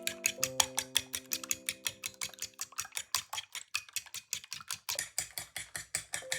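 Background music: a fast, even ticking beat over held keyboard chords. The chords drop out in the middle for a couple of seconds, leaving the ticking alone.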